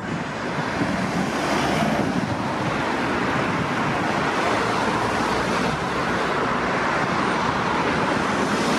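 Steady road traffic noise, a haze of tyre and engine sound from cars on the road, swelling slightly about a second in.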